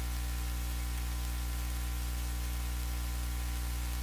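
Steady low electrical hum with its overtones under an even hiss, unchanging throughout: mains hum and noise in the audio system.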